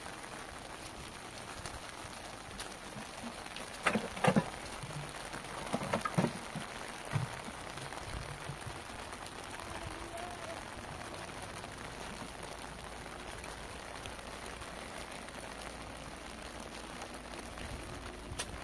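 Steady rain falling, an even hiss, with a few sharp knocks about four and six seconds in.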